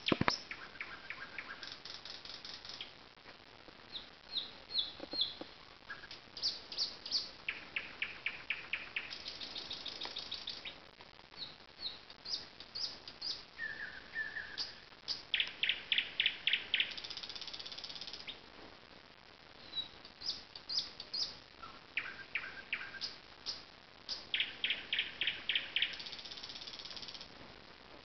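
Nightingale singing: a string of varied phrases separated by short pauses, made of fast rattling runs of repeated notes, short clear whistles, and loud series of clipped notes, the loudest about halfway through and again near the end.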